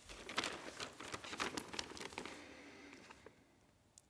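A sheet of paper rustling and crinkling as a letter is handled, a quick run of small crackles for about three seconds that then dies away.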